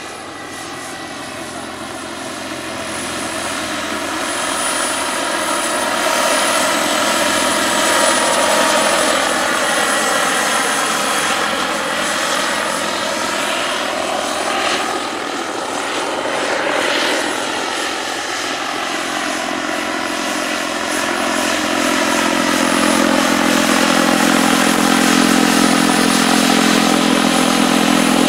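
Turbine-powered large-scale RC model of a Eurocopter H120 Colibri helicopter in flight: a steady high turbine whine over the beat of the main and tail rotors. The sound shifts as the model passes about halfway through and grows louder toward the end as it comes closer.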